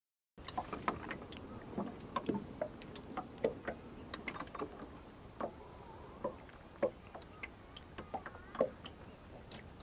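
Irregular light clicks and taps from a small fishing boat on choppy water, with no steady motor sound.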